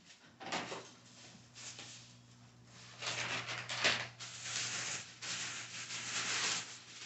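Tissue paper rustling and crinkling as a gift bag is unwrapped by hand: soft at first, then louder and busier for the last few seconds.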